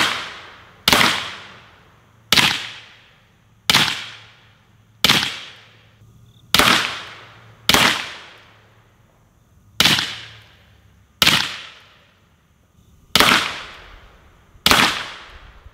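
5.56 rifle firing single shots, about ten of them at a steady pace of one every second and a half or so, each with a short trailing echo. The rounds go partly onto a hard-mounted AR500 steel plate and partly into a dirt berm: a plate hit gives a slap rather than a ring.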